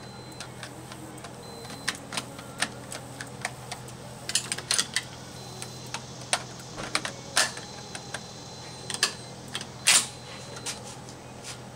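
A run of sharp, irregularly spaced clicks and knocks, several in quick succession about four seconds in and the loudest near the end.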